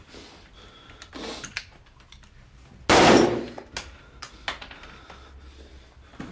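Gunfire: a very loud burst of rapid shots about three seconds in, followed by a few sharp single cracks.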